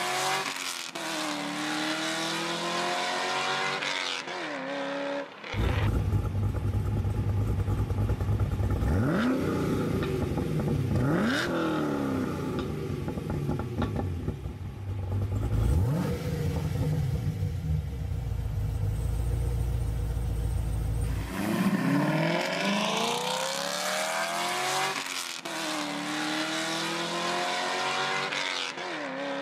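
Chevy SS 6.2-litre V8 exhaust note: the engine accelerates in several pulls, its pitch climbing and dropping back at each gear change. For a long stretch in the middle the sound turns to a deeper, louder rumble with a few short rising revs.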